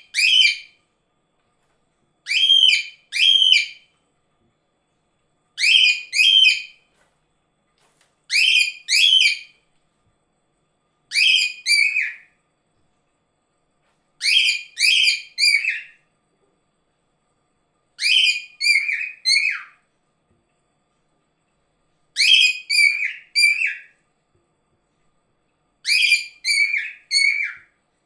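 Cockatiel calling: short, shrill, pitch-bending whistled calls in quick clusters of two to four, a cluster about every three seconds.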